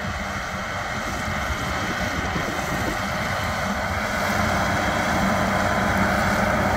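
Large farm tractor running with its mounted grass mower, getting steadily louder as it comes closer.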